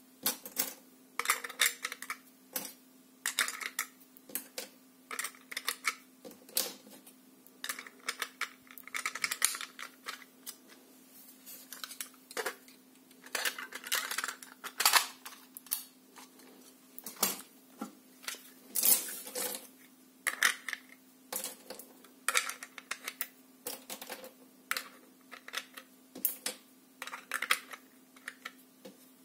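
Irregular clicks and light clattering of plastic parts as short bolts are pushed into 3D-printed ammo clips and the clips are slid into a 3D-printed mini-bow magazine. A faint steady hum sits underneath.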